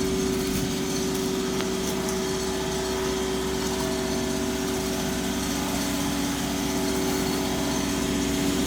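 A concrete truck's engine running steadily at a constant pitch, a continuous hum with no change.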